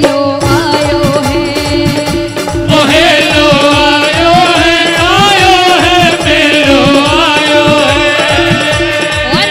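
Live devotional bhajan: a woman sings a wavering melody over steady held drone tones and an even hand-drum beat. Her voice comes in strongly about three seconds in.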